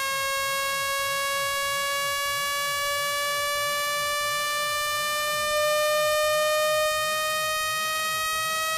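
Electronic speaker-cleaning tone: a buzzy, harmonic-rich test tone gliding slowly upward in pitch, played to vibrate water and dust out of a phone speaker. It swells a little louder briefly just past the middle.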